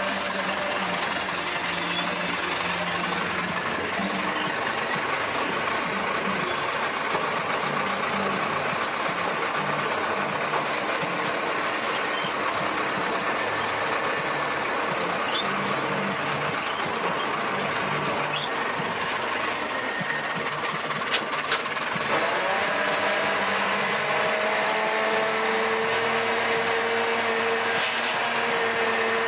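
Small farm tractor's engine running steadily as it drives. About three quarters of the way through, the sound changes and a steady whine joins in as the rear rotary tiller starts working the soil.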